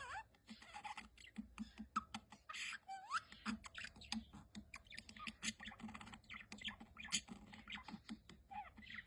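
Budgerigar chattering: a fast run of clicks mixed with short chirps, with a rising whistle about three seconds in.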